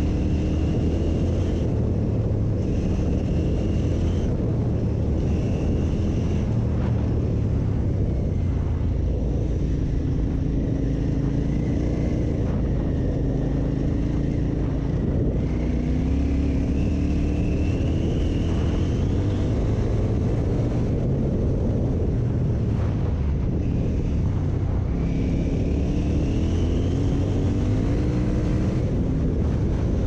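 KTM 950 Super Enduro R's 942 cc V-twin running hard on a gravel track. Its note rises again and again as the bike accelerates, with short dips between the climbs.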